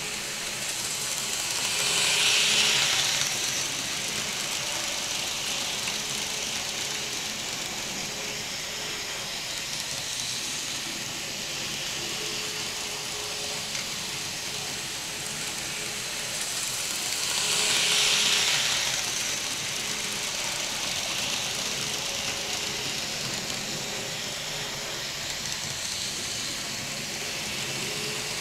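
N scale model trains running around the track: a steady whirring hiss of small motors and wheels on rail. It grows louder twice as the train rolls past close by, shortly after the start and again about two-thirds of the way through.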